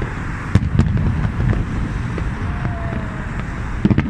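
Fireworks going off: sharp bangs about half a second in and again just after, fainter pops between, and a close pair of bangs near the end, over a steady low rumble.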